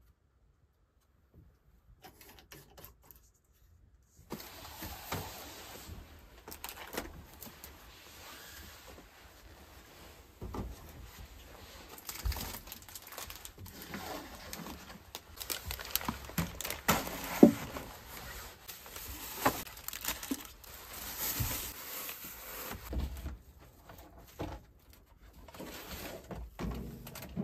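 Irregular knocks, clicks and scrapes of objects being handled, over a steady hiss that starts about four seconds in; the loudest knock comes about two thirds of the way through.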